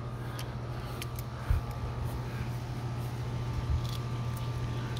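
Steady low mechanical hum, like a motor running. Two soft thumps and a few faint metal clicks from grill tongs, the clearest near the end.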